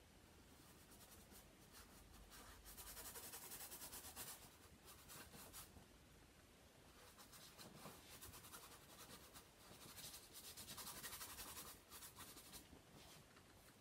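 A paintbrush stroking across canvas: a faint, dry, scratchy brushing. It comes in two longer spells, about three seconds in and again around ten to twelve seconds, with a few short scratches between.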